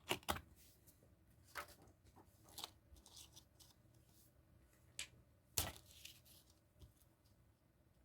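Faint handling noises from a Blu-ray case and its discs: a scatter of short clicks and brief rustles, spread irregularly through the first six seconds or so.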